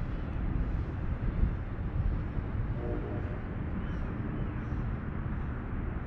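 Steady low outdoor rumble of background noise with no single clear source, its loudness wavering slightly. A faint short hum comes about three seconds in.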